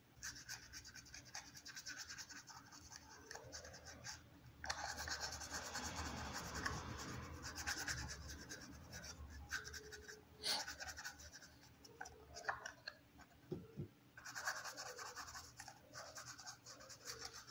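Paintbrush bristles scratching faintly over thin cardboard as paint is brushed onto a small cardboard box, in stretches of short strokes with brief pauses.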